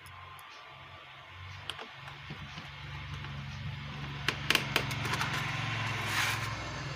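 A few sharp plastic clicks as a Bluetooth speaker's casing is fitted back together, over a low engine-like rumble that grows louder from about two seconds in.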